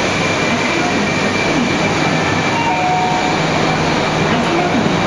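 JR East 200 series Shinkansen train rolling slowly alongside the platform: a steady, even rumble of wheels and running gear with no breaks.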